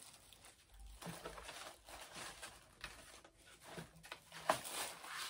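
Hands handling packaged food products and packaging, making irregular rustles and soft knocks, with one sharp click or knock about four and a half seconds in.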